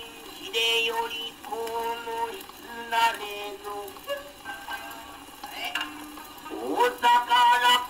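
Naniwabushi (rōkyoku) chanting played from an old shellac 78 rpm record on a gramophone: a male voice holds long drawn-out notes, slides upward about six and a half seconds in into a loud held note with vibrato, and a few sharp plucked attacks that fit shamisen accompaniment sound through. Steady surface hiss from the record runs underneath.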